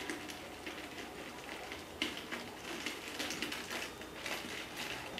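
Faint crinkling and rustling of a thin metallized foil strip as hands roll it into a tube. The crackles come irregularly and grow more frequent from about two seconds in.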